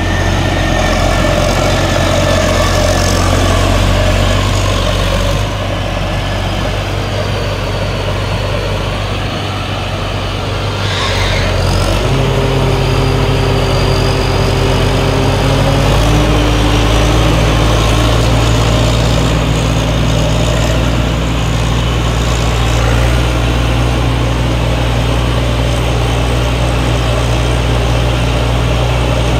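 T. Charoen Karnchang 2017 tracked rice combine harvester running steadily with a continuous low engine drone. About twelve seconds in, a higher steady whine joins, and a few seconds later the drone grows stronger as the machine works.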